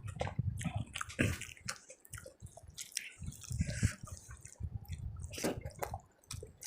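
Close-miked wet chewing and mouth sounds of a person eating rice with curry, with many quick smacking clicks.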